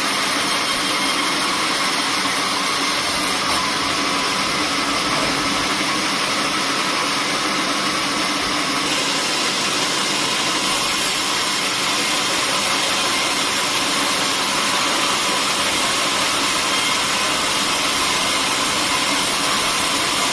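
Sawmill machinery running steadily: a loud, even machine noise with no breaks or knocks.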